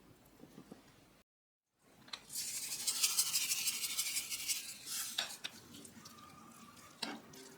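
Kitchen cooking sounds: a loud hiss lasting about three seconds, then a few sharp clinks of utensils against dishes or pans.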